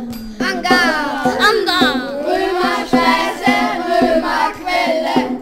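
Music: voices singing in gliding, wavering pitches over a steady held drone note.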